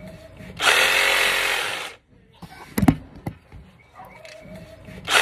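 A handheld power tool run in two short bursts of about a second and a half, with a single sharp knock between them.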